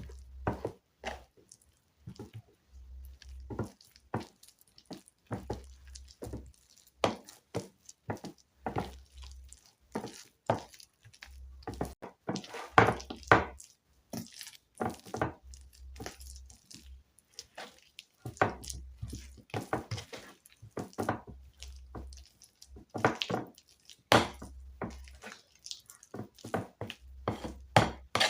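A thick potato, egg and flour mixture being stirred in a bowl: irregular wet squelches and clicks of the utensil against the bowl, with soft thumps throughout.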